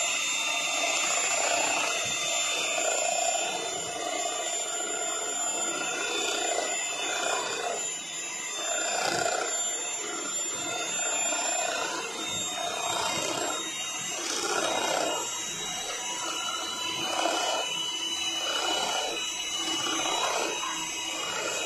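Electric hand mixer running steadily, its beaters churning thick cake batter as the flour mix is beaten in. The motor gives a steady high whine over the churning.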